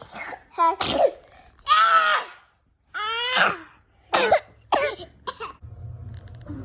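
A young child coughs in a fit of about seven coughs. Most are short, but two in the middle are longer and strained, with a high voiced sound. The coughing stops about five and a half seconds in.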